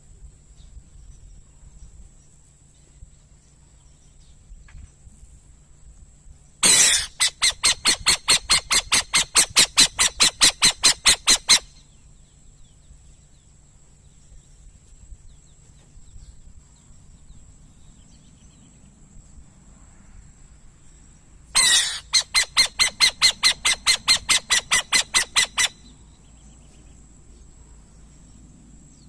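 Burrowing owl calling in two bouts of rapid, harsh repeated notes, about four to five a second, each bout opening with a longer note and lasting four to five seconds.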